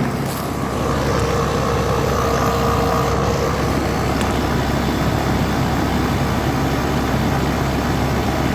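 1998 Rheem Classic XIV 4-ton central air conditioner condenser running steadily: the scroll compressor hums under the even rush of the condenser fan, which is driven by a replacement fan motor.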